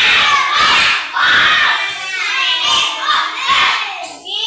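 A group of young children shouting and chanting loudly together, their voices overlapping in bursts about every second.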